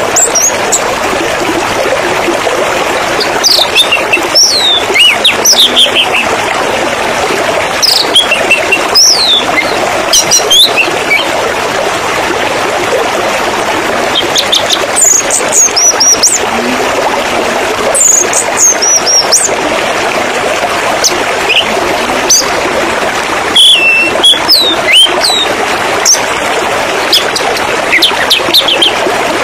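Steady rush of flowing water with small songbirds chirping over it: short, high, sliding chirps and whistles come and go throughout, some in quick runs.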